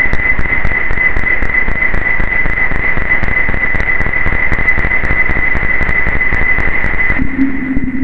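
Roland AIRA Compact S-1 synthesizer drone: a dense crackling, static-like noise texture with a steady high whistling tone over it. About seven seconds in it changes to a lower, steady hum.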